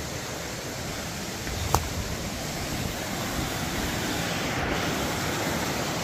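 River water rushing over rocks, a steady wash of noise that grows a little louder; a single sharp click nearly two seconds in.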